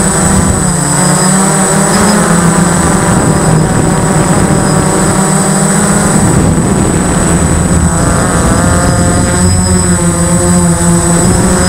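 Motor and propeller of a 3DX8 RC model plane, heard from a camera mounted on the aircraft, running loudly and continuously. Its pitch wavers up and down as the throttle changes, with a steady high whine above it.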